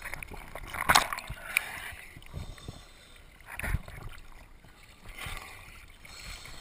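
Surface water sloshing and splashing around a diver at the waterline, with irregular knocks: a sharp one about a second in and a low thud near the middle.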